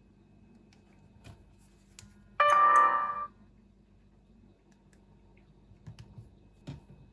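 Short electronic tone from a Samsung Galaxy S4 GT-I9500's loudspeaker, sounding once for just under a second about two and a half seconds in and cutting off abruptly, with a few faint clicks before and after it.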